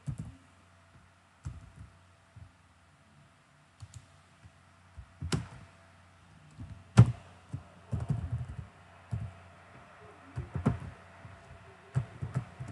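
Computer keyboard being typed on in short bursts of keystrokes with pauses between, one key strike about seven seconds in sharper and louder than the rest.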